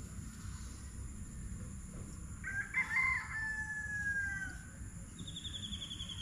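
A rooster crows once, starting about two and a half seconds in, and ends on a long held note that drops slightly in pitch. Near the end a small bird gives a quick, rapidly repeating trill that falls in pitch.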